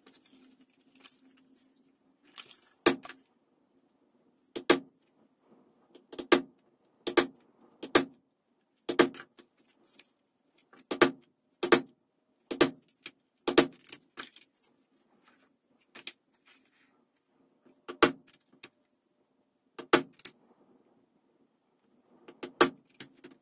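A mallet striking a small metal punch through vegetable-tanned leather, punching stitching holes: about a dozen sharp knocks at an uneven pace, with a pause of a few seconds in the middle.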